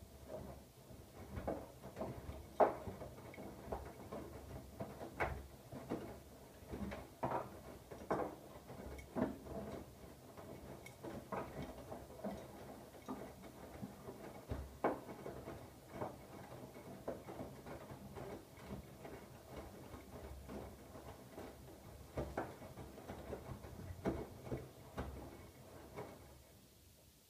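Siemens iQ700 washing machine drum turning during the wash, the laundry tumbling inside with irregular soft knocks and clicks over a low hum. The drum stops about a second before the end.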